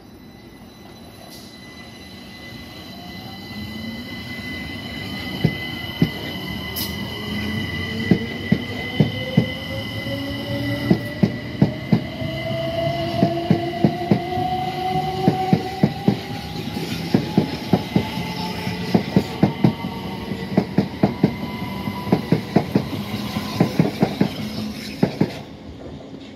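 Southern Class 377 Electrostar electric multiple unit accelerating away from a platform. Its traction motor whine climbs steadily in pitch and grows louder as it speeds up. The wheels click over rail joints, faster and more often as it gathers speed.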